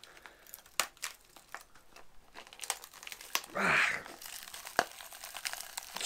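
Melted, charred plastic of a microwaved portable DVD player crackling and snapping as it is worked at with gloved hands to pull it off the microwave's turntable plate and open it: a string of irregular sharp clicks and cracks.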